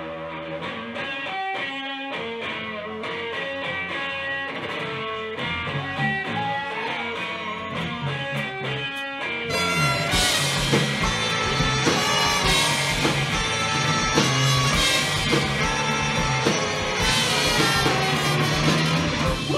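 Live rock band: an electric guitar plays a picked figure alone at first, then about halfway through the drums and the rest of the band, trumpet included, come in together and the music gets louder and fuller.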